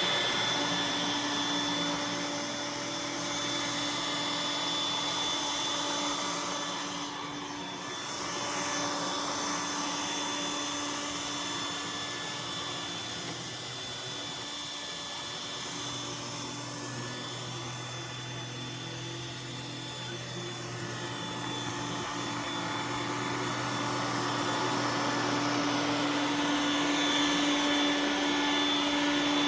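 iRobot Roomba s9 robot vacuum running, a steady motor hum and whine with brush and suction noise that slowly fades and swells.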